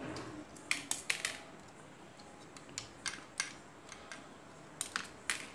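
Hard plastic parts of a disassembled toy air gun clicking and knocking together as they are handled, about nine sharp clicks in three clusters.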